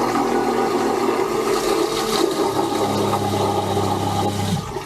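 New push-button electric marine toilet flushing: its pump motor whirs over rushing water, a deeper hum joins about halfway through, and it cuts off just before the end. The flush is working properly.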